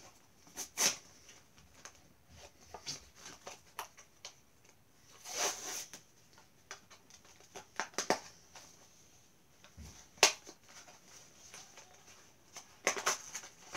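A Hot Wheels toy car's blister pack (plastic bubble on a cardboard card) being worked open by hand: scattered crinkles and clicks of plastic and card, with a longer rustle about five seconds in and a sharp snap about ten seconds in.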